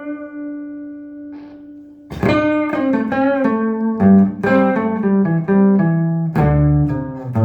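Electric guitar with humbucking pickups played straight into a Trace Elliot Trident valve combo amp fitted with 6L6 power tubes, no pedals: a held note dies away, then about two seconds in a run of picked single notes starts, closing on a low sustained note.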